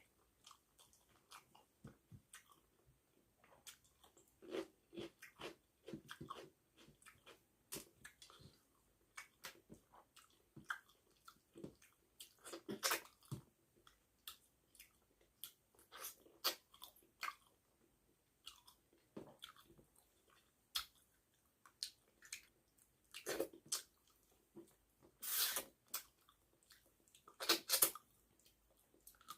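Close-up eating sounds: wet chewing, lip smacks and crunches as a person eats rice with fish-head curry by hand, with a few louder slurping or crunching bursts.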